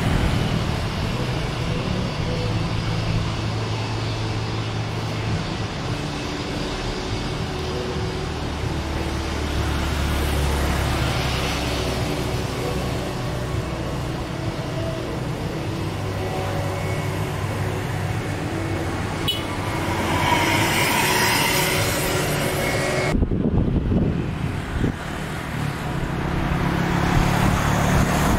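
Airbus A320-family jet airliner engines running at low thrust as the aircraft rolls along the runway and taxis past, a steady jet rumble mixed with outdoor traffic and wind noise. The sound changes abruptly about 23 seconds in.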